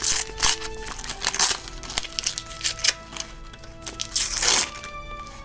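Foil booster pack of trading cards being torn open and crinkled in the hands, a quick run of sharp crackles, with background music playing underneath.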